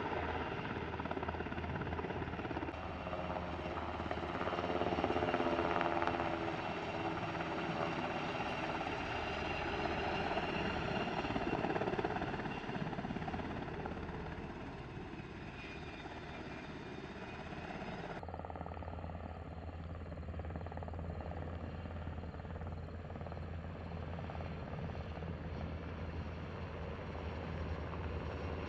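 U.S. Navy H-60 Seahawk helicopter running close by, with a steady low rotor beat under the whine of its twin turboshaft engines. The sound swells twice in the first twelve seconds and changes abruptly about eighteen seconds in.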